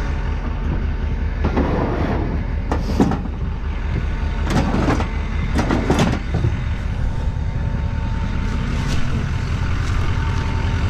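A truck engine idling steadily. A few clunks and rattles come between about two and six seconds in.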